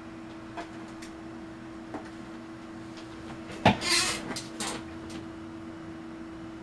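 A steady electrical hum from the test bench. About halfway through there is a sharp click, then about a second of rustling noise and a few lighter clicks.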